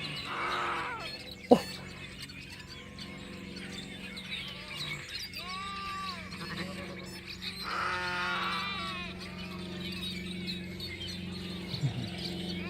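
Sheep bleating, several separate calls of differing pitch. There is one sharp knock about a second and a half in.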